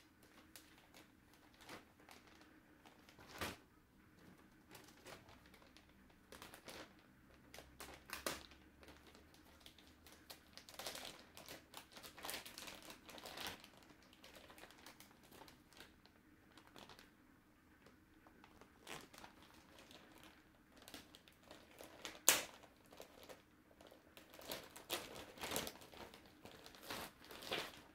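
Packaging and paper crinkling and rustling in irregular bursts as the contents of a box are handled, with scattered light clicks and taps, a sharper one about 22 seconds in.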